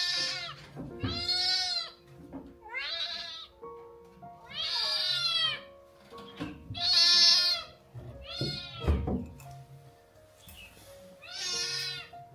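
Kittens meowing: about seven loud, high-pitched meows, each rising and then falling in pitch, over soft background music.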